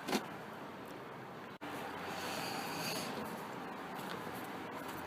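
A sharp knock just after the start, then rustling and scraping as hands work hoses and fittings in a car engine bay.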